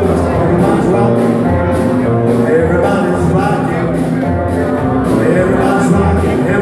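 Live band playing rock and roll: a pulsing bass line under guitar, with cymbal strokes keeping a steady beat.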